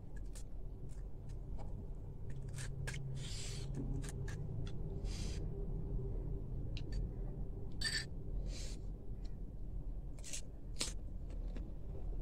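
Panipuri being filled and eaten close to the microphone. Light clicks of a metal spoon against the crisp puri shells, brief crunching bursts as the shells crack, and chewing, over a low steady hum.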